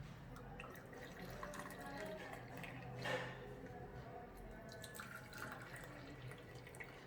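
Faint liquid swirling with light clinks of a spoon as a hot ginger and ajwain decoction is stirred in a pan.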